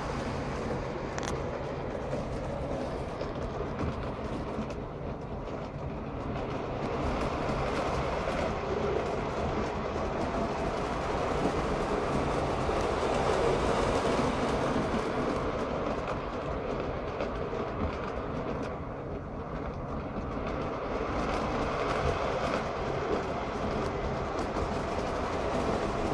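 Lionel O gauge Polar Express model train running around an oval track, its motor and wheels making a steady running noise on the rails. The noise swells as the locomotive passes close by about halfway through, eases off, and rises again near the end.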